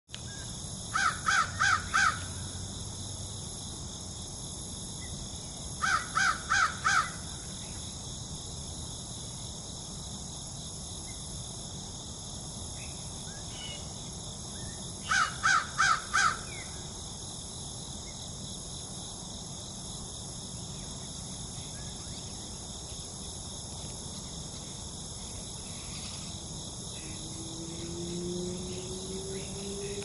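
A crow cawing in three bouts of about four harsh caws each, spaced several seconds apart.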